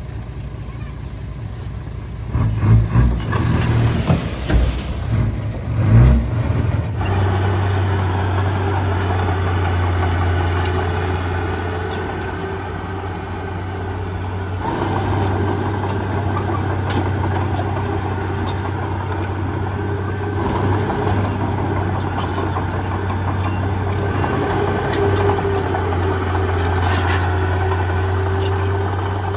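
Heavy diesel engine of earthmoving machinery. About two seconds in come several seconds of uneven, loud rumbling and thumps, then the engine runs steadily at a constant speed.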